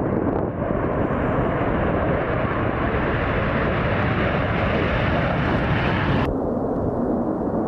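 Military jet engine noise from aircraft taking off: a loud, steady rush. About six seconds in it cuts abruptly to a duller version of the same noise.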